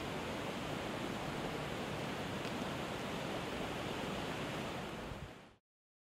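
Steady outdoor ambience: an even rushing noise with no distinct events, fading out about five seconds in.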